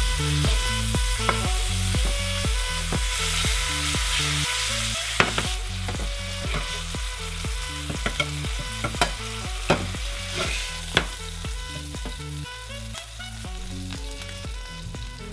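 Mangrove snapper fillets sizzling as they fry in oil in a skillet, with a spatula clicking and scraping against the pan several times, mostly in the middle stretch. The sizzle is strongest in the first few seconds and then grows quieter.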